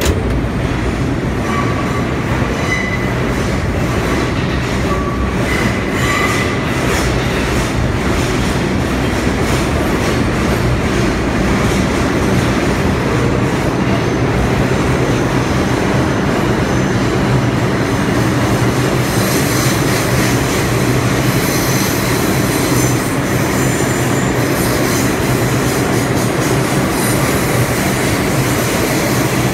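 New York City subway train running through a tunnel: a steady loud rumble and rattle of steel wheels on the rails. There are thin high wheel squeals in the first few seconds.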